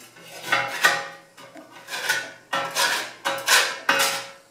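Metal spatula scraping soot off the underside of a wood stove's metal cooktop plate, in about five short strokes with a metallic ring.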